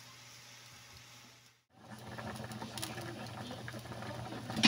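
Pork and water boiling in a large wok to soften the meat. A faint steady hiss breaks off sharply about one and a half seconds in. After the break comes louder bubbling with fine crackling.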